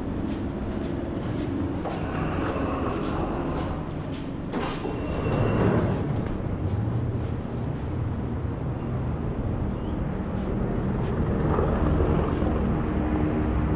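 Steady low rumble of city traffic and trains, with a brief louder clatter about five seconds in.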